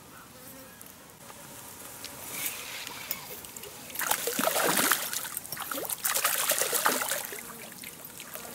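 Water splashing and sloshing, in two louder spells about four and six seconds in, with lighter trickling around them.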